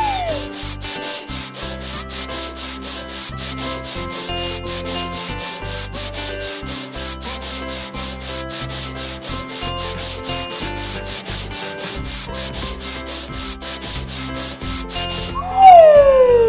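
Cartoon car-wash brush scrubbing a muddy bus: a quick, even run of scrubbing strokes over light background music, stopping about a second before the end. A loud falling whistle glide follows near the end.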